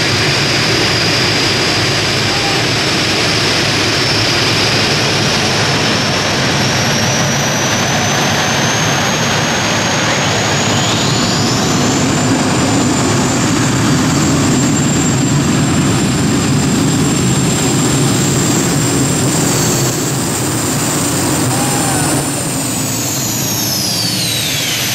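Three Isotov TV2-117 helicopter gas turbines of a modified pulling tractor running with a loud, steady jet roar and a high turbine whine. The whine climbs sharply about halfway through, holds, and then falls away near the end.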